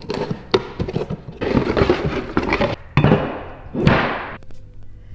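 A new aluminium water pump being taken out of its cardboard box and handled on a workbench: cardboard rustling and scraping, with knocks and thunks as the metal pump is set down.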